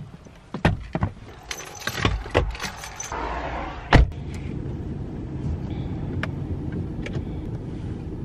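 Someone climbing into a car: several clicks and knocks of bags and handles, then the driver's door slamming shut about four seconds in. After that comes the steady low hum of the car heard from inside the cabin.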